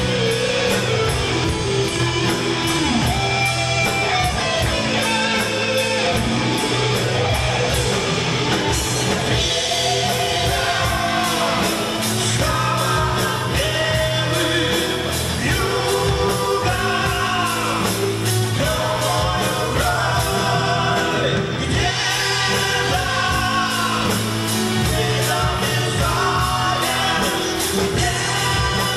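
Rock song: a singing voice over a full band with a steady drum beat.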